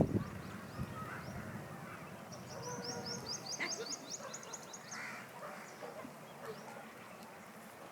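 Birds calling: a rapid trill of about ten short, high, rising chirps a couple of seconds in, among scattered softer calls.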